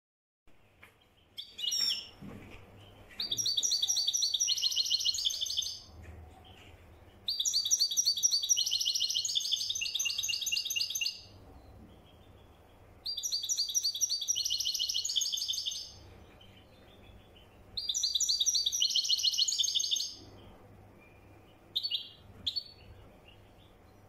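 European goldfinch singing in the trained Moroccan Marrakchi style: four phrases of rapid, high twittering song, each about three to four seconds long, with quiet gaps between them, plus a few short calls near the start and near the end.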